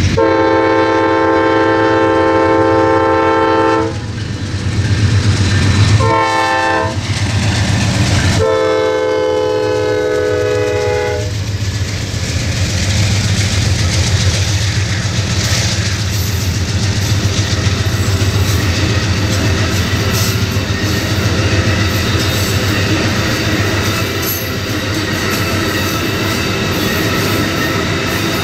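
Amtrak Auto Train passing: the diesel locomotive sounds its multi-note chime horn in a long blast, a short blast and another long blast, over the steady drone of the engine. Then the bi-level Superliner passenger cars and autorack cars roll by with a continuous clatter of wheels on rail.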